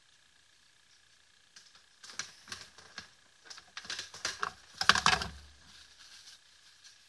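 A cluster of small, sharp clicks and taps from about one and a half to six seconds in, with a dull bump near five seconds, like small tools or parts being handled on a workbench. A faint, steady high-pitched tone sits underneath.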